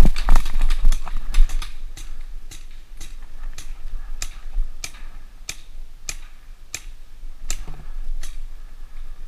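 Paintball markers firing: sharp pops, a quick, louder cluster in the first second or so, then single shots at a steady pace of about one every two-thirds of a second.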